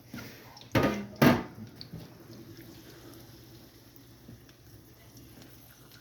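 Two short clattering knocks of kitchen utensils or dishes about a second in, then a faint steady hum.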